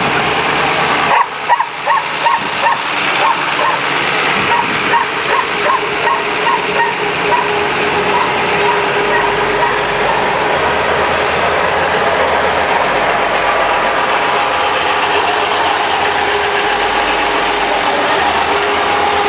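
Parade floats towed past by pickup trucks, their engines running with a steady low hum. About a second in, a quick run of short high-pitched sounds, two or three a second, fades away over several seconds.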